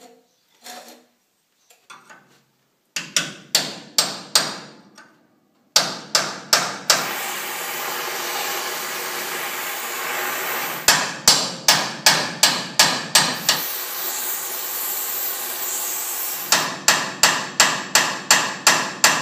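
Steel hammer blows on a chisel driven against a rusted timing collar on a swather auger shaft. The blows come in several quick runs of about three a second, each with a short metallic ring. Through the middle there is a steady hiss from a gas torch heating the collar.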